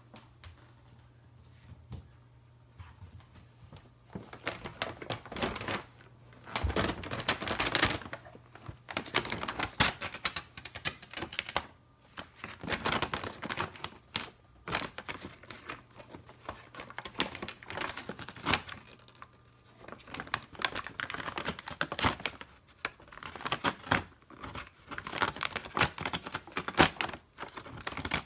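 Paper bag crinkling and crackling as a cat moves about inside it, in irregular bouts of sharp rustles with short pauses between.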